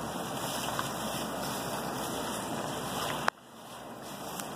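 Gloved hands mixing chunks of raw meat into a wet yogurt-and-spice marinade in a plastic bowl: a steady wet squishing and plastic-glove rustle. There is a sharp click about three seconds in.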